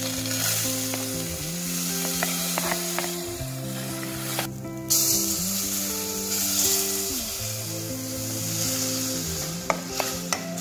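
Chopped onion sizzling in a hot aluminium pan as it is stirred with a wooden spoon and tomato sauce is poured in. The sizzling breaks off briefly a little after four seconds in, and there are a few light clicks of the spoon.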